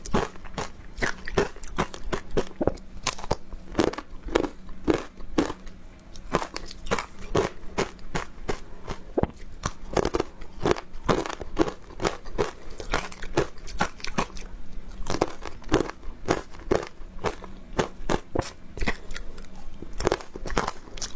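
Close-up crunching and chewing of powdery ice dusted with matcha powder: a dense, irregular run of crisp crunches, several a second.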